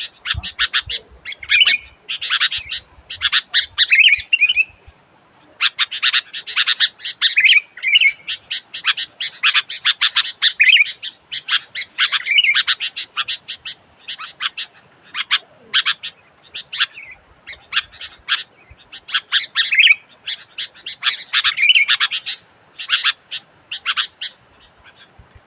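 Sooty-headed bulbul calling loudly: rapid runs of sharp chips mixed with short warbled phrases, coming in bursts with brief pauses between them.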